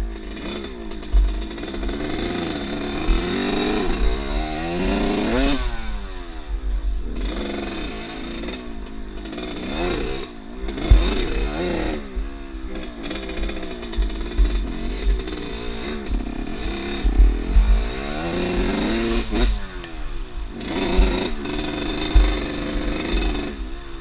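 Off-road motorcycle engine being ridden, its pitch rising and falling over and over as the rider works the throttle and gears, with wind buffeting the microphone and occasional knocks.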